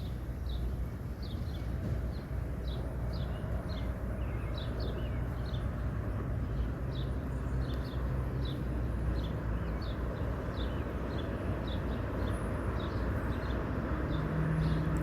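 Outdoor lakeside ambience: a bird repeats short, high, downward-sweeping chirps about two or three times a second over a steady low rumble. A low steady hum comes in near the end.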